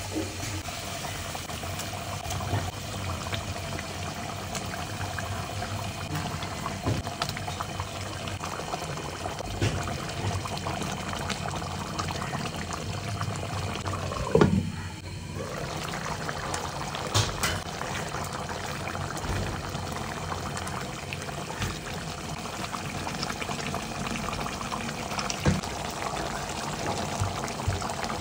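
Fish curry bubbling and sizzling as it simmers in a pan: a steady hiss with small pops. About halfway it drops out briefly, just after a single knock.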